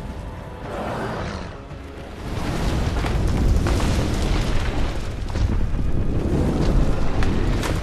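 Movie sound effects of a burning jungle: a steady low rumble of fire and blasts with scattered crackles, growing louder about two seconds in.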